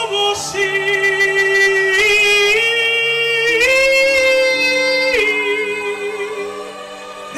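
A woman singing long, held wordless notes in worship, stepping up in pitch twice and sliding down about five seconds in, over steady sustained chords underneath.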